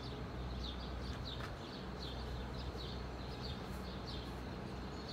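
Small birds chirping: short high chirps repeating unevenly, two or three a second, over a steady low background rumble.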